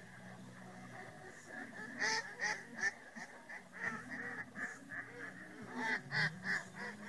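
A large flock of waterfowl calling from the marsh: many short, overlapping calls that grow louder and denser about two seconds in, over a low steady hum.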